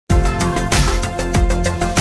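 Channel intro music with a steady drum beat, cutting in abruptly at the start.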